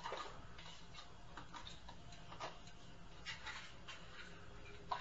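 Faint, irregular ticks and light knocks, about two or three a second with no steady rhythm, over a low steady hum. The sharpest knocks come right at the start and again near the end.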